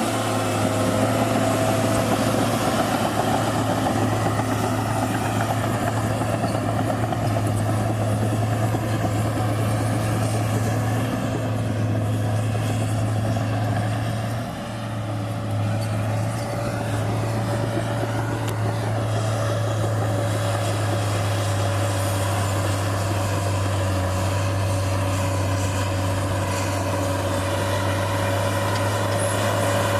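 New Holland D180C crawler dozer's diesel engine running steadily under load, heard from inside the cab as a constant low drone, with a brief dip in loudness about halfway through.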